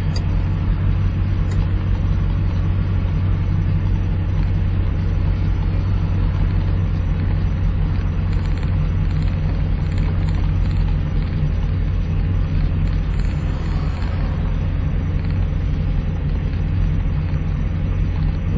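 Plymouth Volaré driving at a steady speed: a steady low engine drone with road and tyre noise that holds the same pitch and level throughout.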